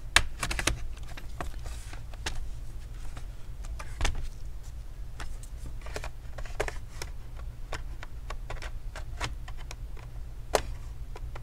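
Prying tool worked along the seam of a Dell Inspiron 3593 laptop's bottom cover, its plastic clips clicking and snapping loose: a string of irregular sharp clicks.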